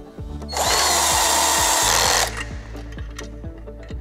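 Cordless drill spinning up and running for about a second and a half as it drives a bolt home on a steel stand, its pitch rising quickly and then holding steady. Background music plays underneath.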